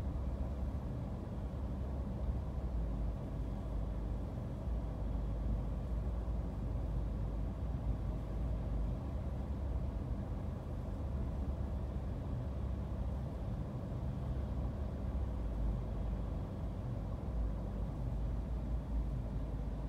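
Steady low rumble of a car idling while stopped, heard from inside the cabin, with a faint steady hum.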